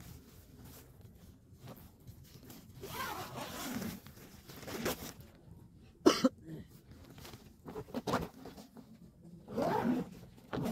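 Nylon tent door zipper being worked, rasping in several strokes with the tent fabric rustling, and a sharp click about six seconds in.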